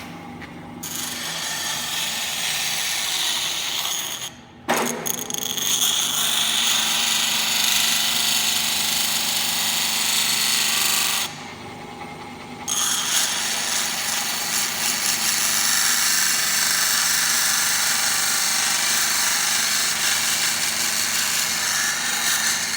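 Pedestal grinder's abrasive wheel grinding an edge onto a workpiece: a loud, steady harsh hiss that starts about a second in and drops out briefly twice, around four and a half seconds in and again from about eleven to twelve and a half seconds, with the motor's steady hum underneath.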